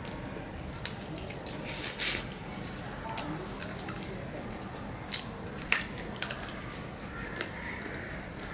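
Close-up wet eating sounds of a person eating rice and fish curry with the fingers: squishing and mouth noises, with a loud wet burst about two seconds in and a few sharp smacks a few seconds later.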